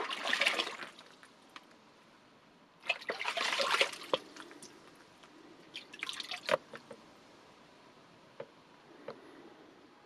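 Face-washing foley: water splashed by hand three times, each a short burst of splashing, with scattered drips between and after.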